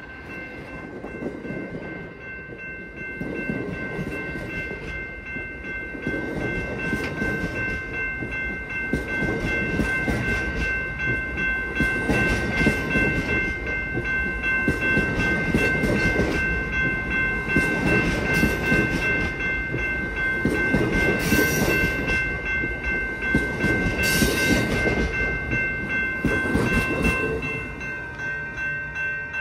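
Amtrak Superliner bilevel passenger cars rolling past close by, the wheels pounding in a repeating surge about every one to two seconds. The sound builds over the first few seconds and drops off near the end as the last car goes by. Under it runs a steady high ringing from a grade-crossing warning bell.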